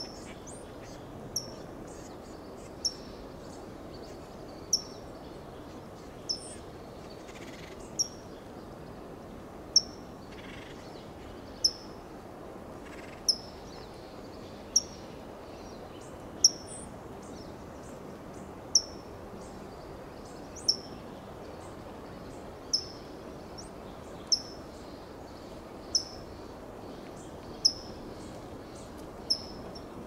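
California towhee giving single sharp, high 'tsip' call notes, one every one and a half to two seconds, each a quick downward-slurred chip.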